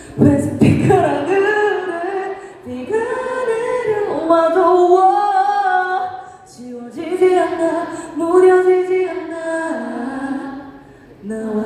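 A woman's voice singing a slow melody with no instruments, in several long-held phrases with short breaths between them.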